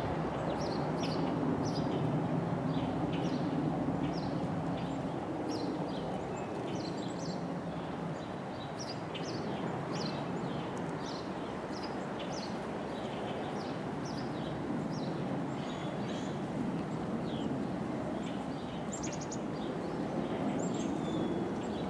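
Birds chirping in many short, repeated calls over the low, steady rumble of PCC streetcars running on the track. The rumble swells again near the end.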